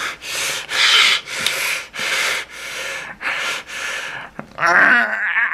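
A man huffing out about seven forceful, rapid breaths in a row, then breaking into a loud wavering yell near the end, straining as if powering up like a Super Saiyan.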